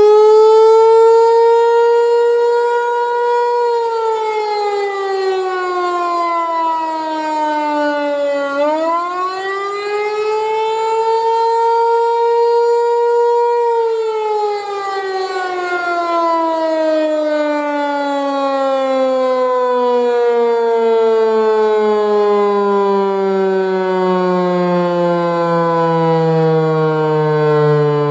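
Federal Signal Equinox rotating chopper outdoor warning siren sounding the Attack signal. Its pitch climbs and holds, falls, climbs and holds again, then drops in one long, slow fall to a much lower pitch.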